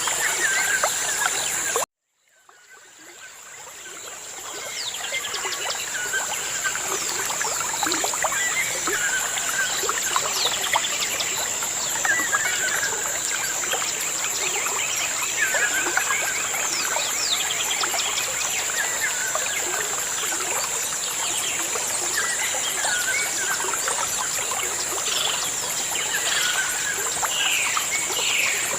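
Many small birds chirping and calling over one another in short repeated phrases, with a steady high-pitched whine underneath. The sound cuts out abruptly about two seconds in and fades back up over the next few seconds.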